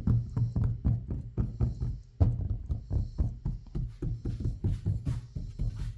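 Rapid, even low knocking, about five knocks a second, during a rattle check of a Tesla Model Y/3's refitted front air intake cover.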